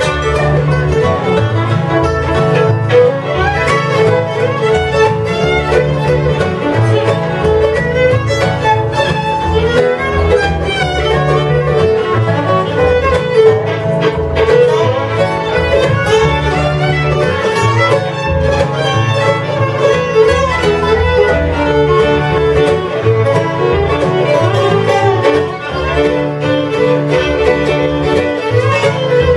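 Acoustic string band playing a fiddle tune: the fiddle carries the bowed lead over acoustic guitar and mandolin accompaniment, with a steady bass line underneath.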